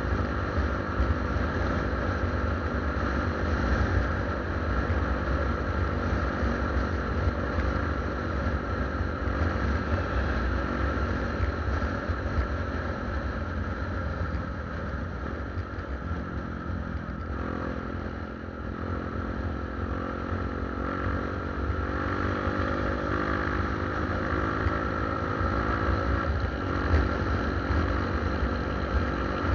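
Motorcycle engine running while riding, with wind rumble on the microphone; the engine note drops about halfway through and then climbs again as the bike picks up speed.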